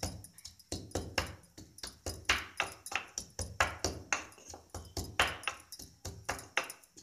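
Ginger being pounded in a wooden mortar with a pestle: quick, regular knocks, about three a second.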